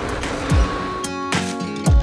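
Background music: sustained instrumental notes filling out about a second in, with low drum thumps.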